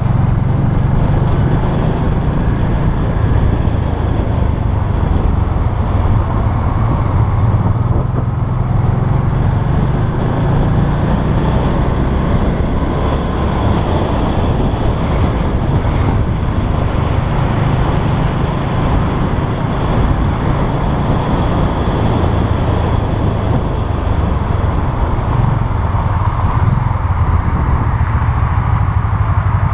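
Can-Am Spyder RS-S three-wheeled motorcycle's engine running under way, mixed with a steady deep rumble of wind buffeting the rider-mounted camera's microphone.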